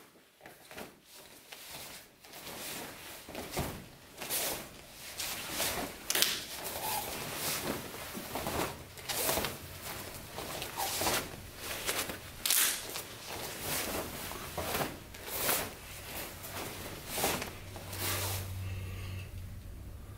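Sharp snaps and swishes of taekwondo uniforms and bare feet striking foam mats as three people perform the Koryo poomsae's punches, blocks and kicks, about one crisp snap a second at an uneven pace.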